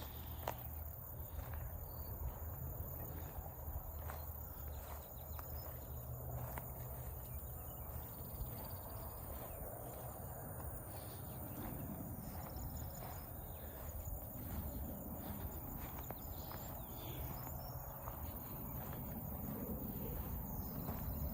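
Outdoor rural ambience: scattered faint bird chirps and insects over a steady low rumble, with a few light clicks.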